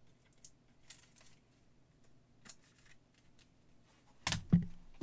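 Faint clicks and rustles of trading cards and their packaging being handled, then a loud knock and thump about four seconds in as something is set down or bumped near the microphone.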